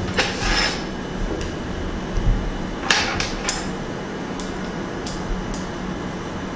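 Light clicks and taps as an aluminium tube and an acrylic panel of a photo light box are handled and fitted together: a couple at the start, a quick run of three about three seconds in, then a few small ticks. Under them runs a steady background hiss and low hum.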